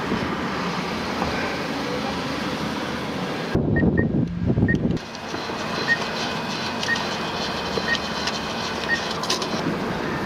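A steady car-running noise, then a drive-up ATM beeping about once a second while a dollar bill is fed into its cash slot.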